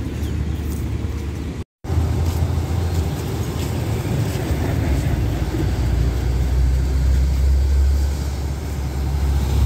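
Diesel engine of an Isuzu tandem-axle truck running as it drives up, a low engine drone that grows louder over the last few seconds.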